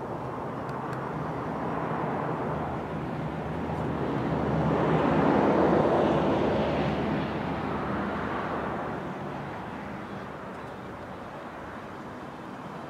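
Ford dump truck's engine running steadily while its hydraulic dump bed lowers. A broader rushing noise grows louder to a peak about halfway through and then fades.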